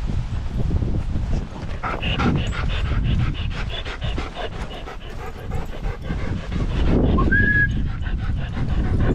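A dog panting quickly and rhythmically, about four breaths a second, over a steady low rumble, with a brief high squeak near the end.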